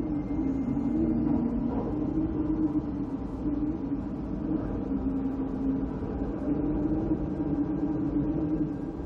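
An engine running steadily, a humming drone over a low rumble that wavers slightly in pitch.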